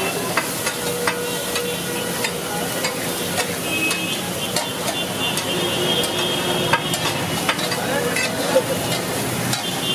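Steel spatula scraping and clicking against a large flat metal griddle (tawa), stirring masala that sizzles as it fries. Frequent short metal-on-metal clicks run over a steady sizzle.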